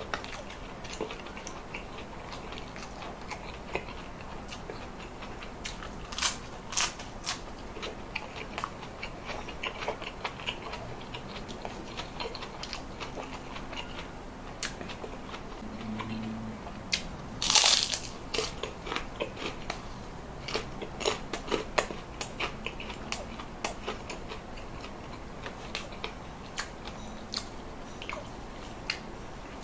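Close-miked eating: wet chewing and biting with many sharp clicks and crunches. One loud crunch comes a little past the middle, and clusters of crunches come around it.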